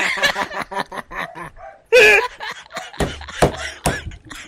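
Men laughing and snickering in short, uneven bursts.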